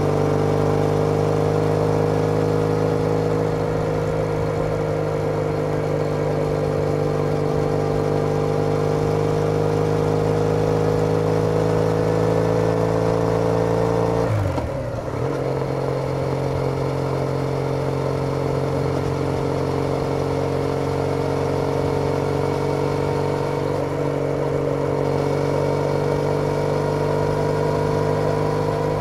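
Triumph Bonneville T214's air-cooled parallel-twin engine running steadily at cruising speed through a TOGA aftermarket exhaust, heard while riding. About halfway through, the sound dips briefly as the rider changes gear, and the engine comes back slightly lower in pitch.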